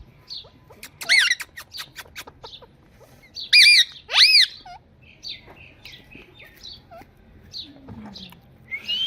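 Indian ringneck parrot squawking: loud harsh calls that rise and fall in pitch, about a second in and again from three and a half to four and a half seconds in. Between them come short high chirps, repeated every second or so.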